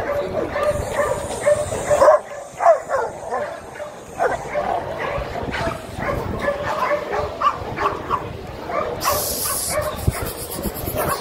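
A dog yipping and whining in short, rising and falling cries, loudest about two seconds in.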